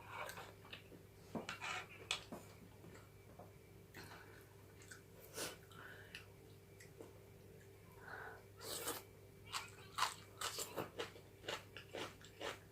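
Close-miked mouth chewing and crunching on seasoned chicken bones: irregular crisp crunches and bites, louder and more frequent from about eight and a half to eleven seconds in.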